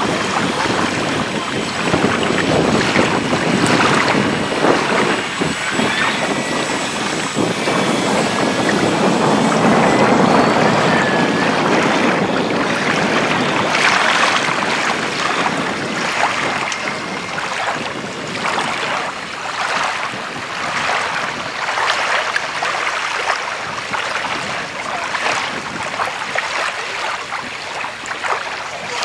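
Gusty wind buffeting the microphone in uneven gusts. Under it runs the faint thin whine of the Carbon-Z Cub's electric motor and propeller as the model flies over.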